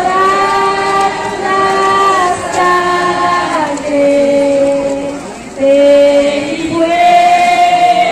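Singing: a slow melody of long held notes, each lasting a second or two, stepping and sometimes sliding from one pitch to the next.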